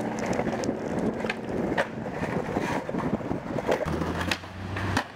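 Skateboard wheels rolling over a tiled sidewalk with a rough rumble, broken by several sharp clacks of the board, the last one near the end. A low hum joins briefly about four seconds in.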